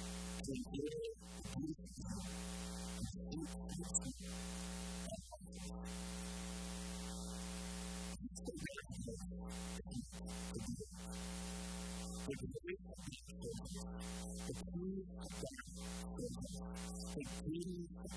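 Steady electrical mains hum: a low buzz with a stack of even overtones that holds unchanged throughout.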